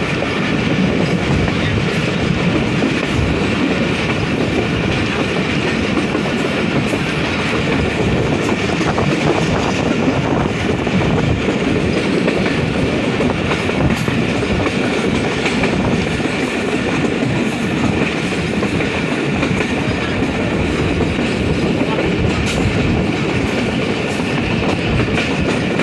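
Passenger train running at speed, heard from beside an open coach window: a steady rumble of wheels on the rails with occasional clicks over rail joints.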